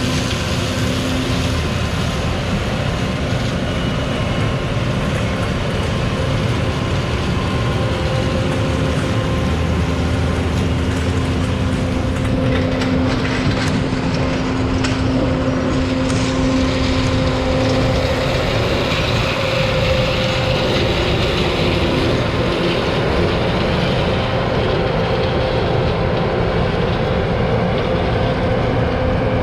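Combine harvester's diesel engine running steadily, a constant drone with a steady hum.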